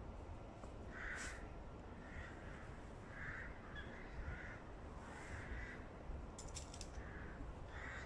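Crows cawing: about eight harsh caws, spaced irregularly.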